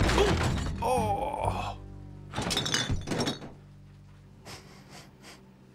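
Household objects clattering and crashing as a bear knocks things about, in two loud bouts, the second about two and a half seconds in, then a few faint knocks. A music score plays under it.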